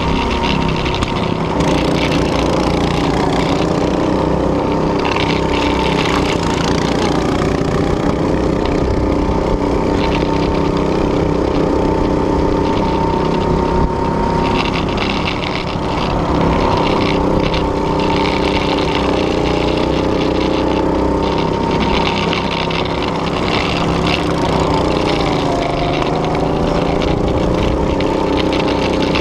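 Small gasoline go-kart engine running under throttle, heard from onboard the kart, its pitch dipping and rising again a few times.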